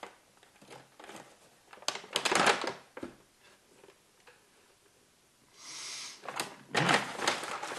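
Brown paper gift bag rustling and crinkling as its string handles are pulled apart and it is opened, in a burst about two seconds in and again near the end, with a short soft hiss in between.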